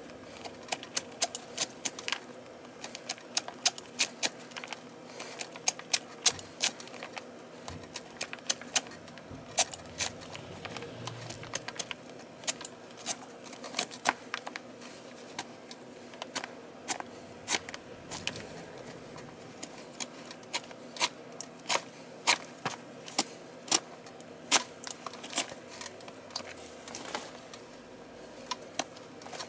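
Pliers clicking and tapping against the leather laces and lacing of a baseball glove during relacing, in irregular sharp metallic clicks several times a second.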